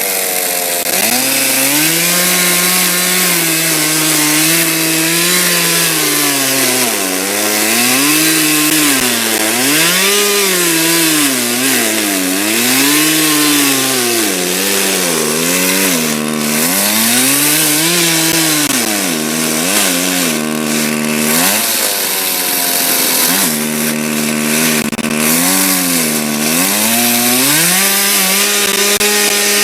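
Two-stroke chainsaw cutting through logs, its engine pitch dropping again and again as the chain bites into the wood and rising as it frees up.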